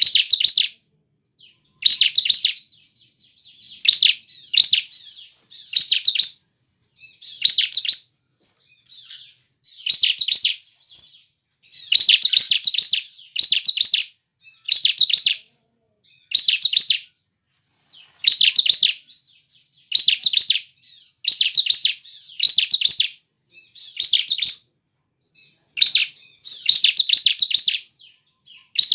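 Bar-winged prinia (ciblek) singing: short bursts of rapid, high chirping notes, repeated every second or two.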